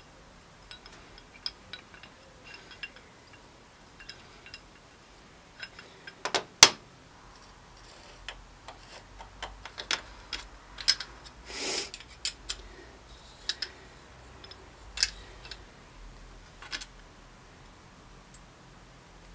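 Small metal parts and an Allen key clicking and clinking against a steel workbench while a bicycle quill stem is handled and its expander bolt is worked. The clicks are scattered and irregular, with one sharp knock about six and a half seconds in and a brief rasp near twelve seconds.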